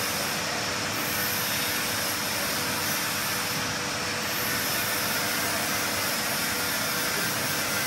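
Steady machinery noise: an even rushing hiss with a faint steady hum, no strokes or rhythm.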